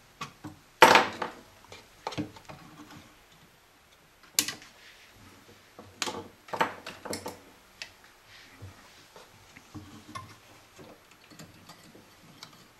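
Scattered clicks and small metallic clinks of hand tools and capacitor leads being worked inside a tube radio's open metal chassis, with the loudest clatter about a second in.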